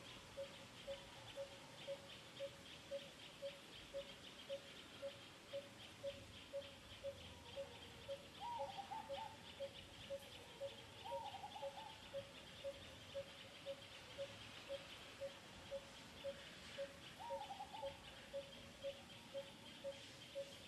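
Outdoor ambience: a short low note repeats evenly, about two a second, over a steady high insect buzz. Three short wavering calls come in near the middle and again later.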